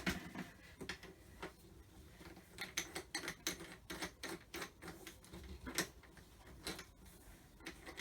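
Light irregular plastic clicks and taps from a pressure washer's hose fitting and housing being handled while connecting the pressure hose, coming quicker in the second half.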